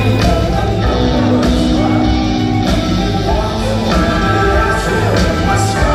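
Rock band playing live with electric guitar, drums and singing, recorded from the audience in an arena, loud and steady.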